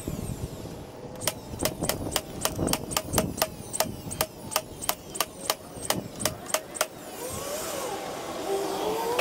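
DeWalt cordless nailer firing nails through a plywood top into its wooden frame: a quick series of sharp shots, about three a second, stopping about seven seconds in.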